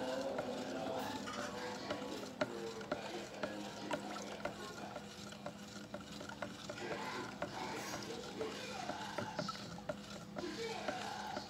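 A stick stirring thick emulsion wall paint in a plastic bucket, with irregular sharp clicks and knocks as it strikes the bucket's sides. A steady low hum runs underneath.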